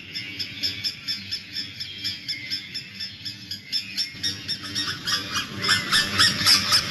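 Caged or flocking small birds chirping rapidly, about four calls a second, growing louder and busier about four seconds in.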